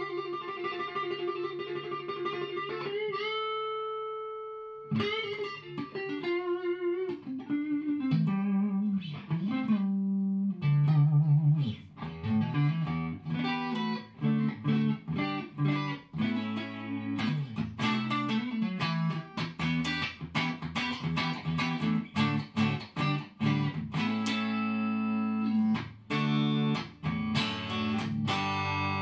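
Electric guitar, a Fender Stratocaster with vintage noiseless pickups, played through the Pellucid stompbox compressor set to maximum sustain. It opens with one long held note, then plays picked single notes and chord riffs. The signal is heavily squashed, with long sustain, an even level and very little background noise.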